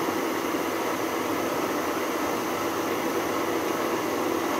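Schaublin SV52 milling machine side-milling a cast aluminium block with a face mill under power table feed: a steady mix of spindle motor, the noisy feed drive and the cutter chipping through the aluminium.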